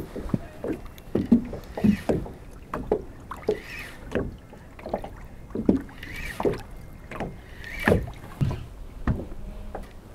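Water slapping against the hull of a small anchored boat: a run of short, irregular hollow knocks, roughly two a second.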